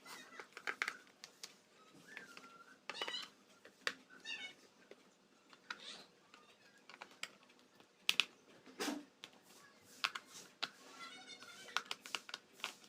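Small clicks and taps of a screwdriver working the screws on the back panel of a Dell laptop, with short high warbling calls from an animal in the background several times.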